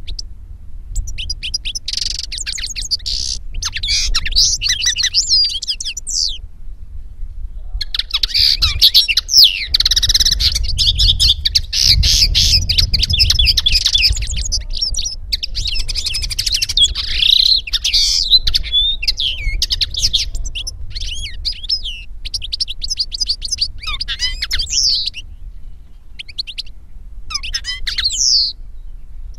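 Finch song from a European goldfinch and common linnet song recording: fast runs of twittering chirps and quick rising and falling whistles, with a short pause about seven seconds in and sparser phrases near the end, over a steady low rumble.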